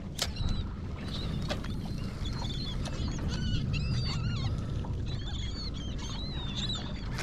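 Many birds calling at once, a busy chatter of short whistled chirps and squeals, over a low steady rumble, with a couple of sharp knocks near the start.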